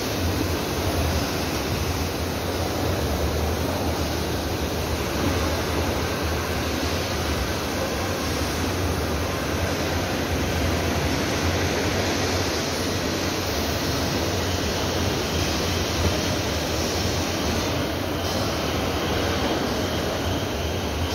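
Steady din of a truck assembly plant floor: an even rumble and hiss with no single distinct event.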